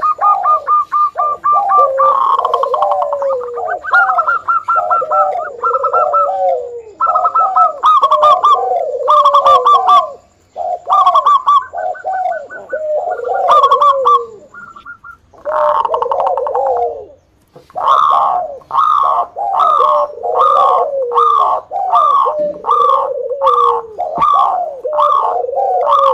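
Zebra dove (local perkutut) cooing in full song: runs of quick staccato notes ending in lower, falling coos. There are short breaks about ten and seventeen seconds in, after which the phrase repeats regularly about once a second.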